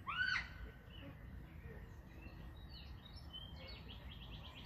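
A bird calling: one clear chirp that rises and falls just after the start, then fainter chirps, over faint outdoor background noise. A quick run of ticks comes near the end.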